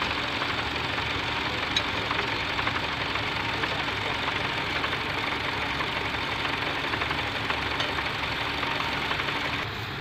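Vintage tractor engine running steadily under load as it pulls a plough through stubble, easing slightly just before the end.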